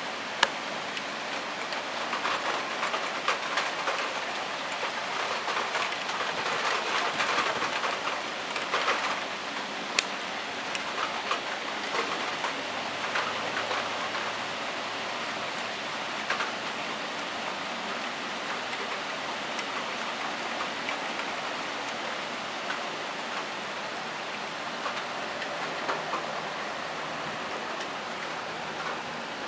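Heavy rain falling steadily, a dense hiss that swells between about two and ten seconds in and then eases. Two sharp clicks cut through it, one right at the start and one about ten seconds in.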